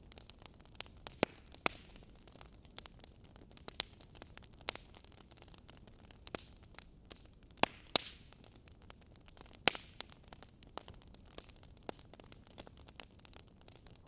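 Wood fire in a fireplace crackling: irregular sharp pops and snaps over a soft steady hiss, with a few louder pops about a second in, around the middle, and a couple of seconds later.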